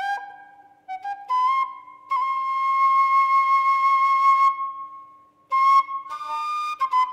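Background music: a slow, flute-like wind-instrument melody. Short notes lead into one long held note, there is a brief pause about five seconds in, and then the melody resumes.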